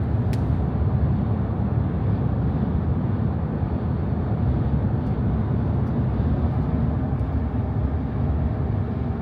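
Steady low road and wind noise inside a Tesla Cybertruck's cabin at highway speed. The newly fitted roof racks add only a very slight amount of wind noise.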